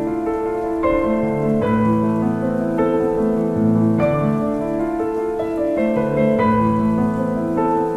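Slow piano music, with new chords struck about once a second and each left to ring.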